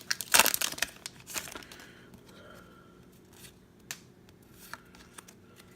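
Foil Pokémon booster pack being torn open and crinkled, loud for the first second and a half, then quieter with a few faint clicks.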